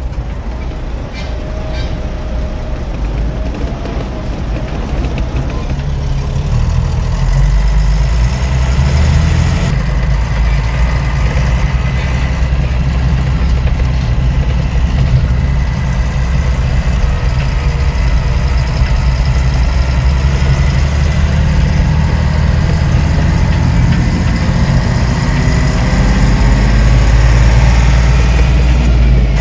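Diesel engine of a Kato mobile crane heard from inside the cab while driving, running steadily under load and growing louder about seven seconds in and again near the end as it pulls harder. A thin, steady high whine rides above the engine from about eight seconds in.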